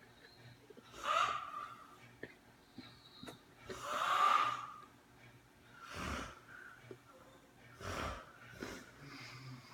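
A sleeping person snoring: a series of about five noisy breaths, roughly every two seconds, the loudest about four seconds in.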